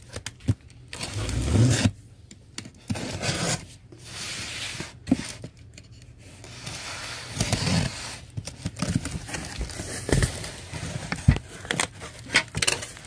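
Utility knife slicing packing tape on a cardboard box: repeated scraping and tearing strokes as the blade runs along the seams. Near the end the cardboard flaps are pulled open, with a few sharp clicks.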